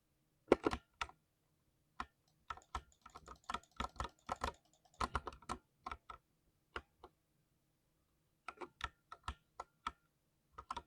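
Typing on a 60% keyboard: sharp key clicks in irregular bursts, with a pause of about a second and a half after the middle before a few more strokes.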